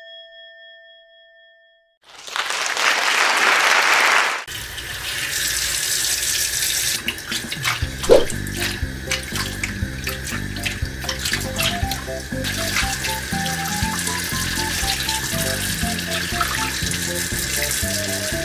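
Tap water running steadily into a sink as raw pork ribs are rinsed under it, with background music over it, and a single sharp knock about eight seconds in. Before the water starts, a bell-like chime fades away and a brief rushing noise follows.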